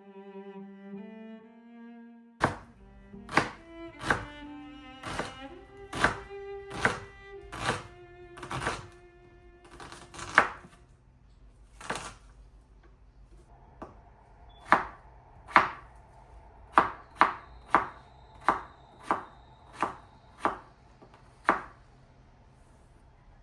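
Knife chopping on a cutting board: about twenty sharp chops, unevenly spaced, some in quicker runs near the end. Soft bowed-string music plays underneath and on its own for the first two seconds.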